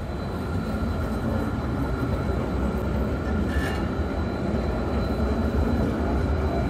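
A metre-gauge, five-section Stadler Variobahn low-floor tram passing close by: a steady rumble of wheels on rails and running gear.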